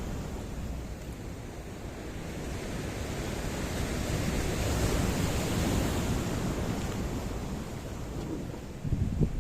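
Waves surging and washing against stone: a continuous rush of surf that swells and ebbs, with wind buffeting the microphone. A few sharp low thumps come near the end.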